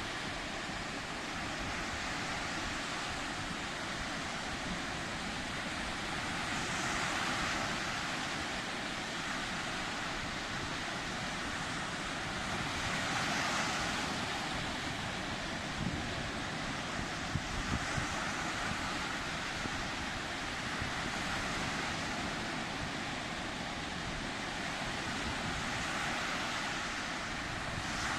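Sea waves breaking and washing on the shore, a steady rush that swells gently every six or seven seconds, with wind on the microphone.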